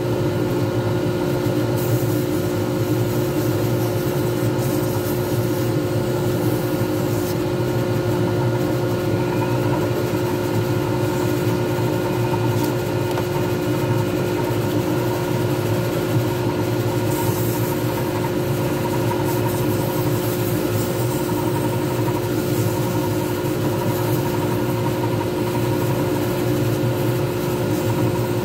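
Small lathe running steadily with a constant motor hum and whine as it spins a resin pen blank, with a hand-held pad rubbing against the turning blank at times.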